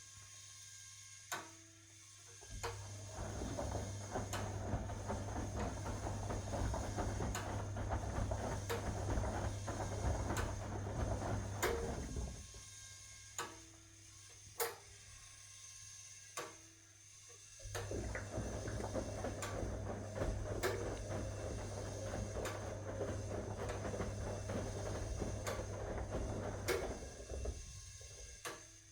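1961 AEG Lavamat Noris front-loading washing machine washing: the drum motor runs with a steady hum over the swish of tumbling wet laundry for about nine seconds, stops for about five seconds with only sharp clicks, then runs again for about nine seconds, the stop-and-go rhythm of a reversing wash drum.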